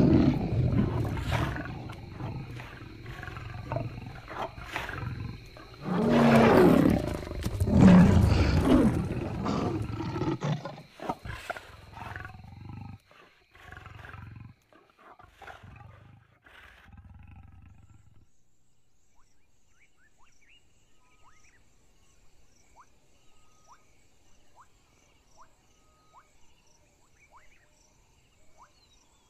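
Lions snarling and roaring in a fight, loudest about six to nine seconds in, then dying away in scattered growls. After that only faint insect chirping, short and regular, is left.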